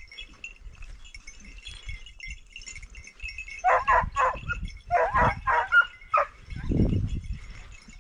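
Hunting hounds barking: a quick run of short, high yelping barks about halfway through, in two bunches. A faint, steady, high tinkling runs underneath.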